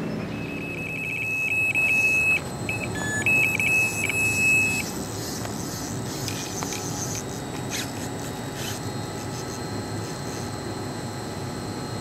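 Electronic carp bite alarm sounding a run: rapid beeps that merge into a continuous high tone, broken once briefly, lasting about four and a half seconds as a fish takes line. A few faint clicks follow over steady background noise.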